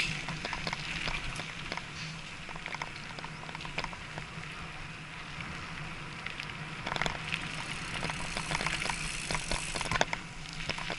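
Mountain bike rolling along a gravel forest road: tyres crunching over loose stones, with a steady stream of small clicks and rattles that grows busier about seven seconds in and again near the end.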